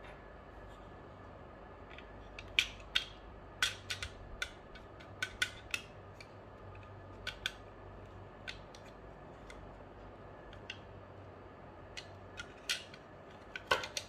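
Sharp plastic clicks and taps as the parts of a BV20 note acceptor are handled: its roller shaft with rubber wheels is fitted into the plastic housing. The clicks come in an irregular cluster from about two to six seconds in, with scattered ones later and a few more near the end, over a faint steady hum.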